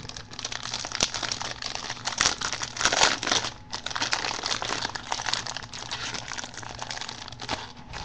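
Clear plastic wrapper on a pack of trading cards crinkling and crackling as it is torn and peeled off by hand, loudest about three seconds in.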